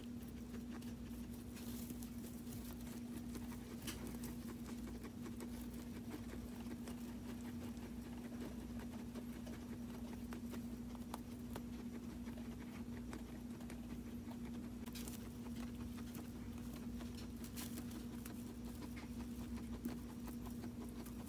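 Guinea pigs moving about in hay and pulling at and chewing hay, heard as scattered soft rustles and small clicks, over a steady low hum.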